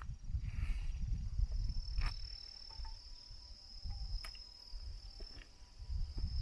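An insect trilling with a steady, high, even tone that sets in about a second and a half in, over an uneven low rumble, with two faint clicks.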